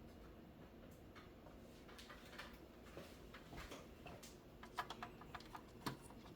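Near silence with faint, scattered clicks and light taps of a monitor's PCB and FPGA module and its metal casing being handled and positioned, with a short cluster of sharper clicks about five seconds in.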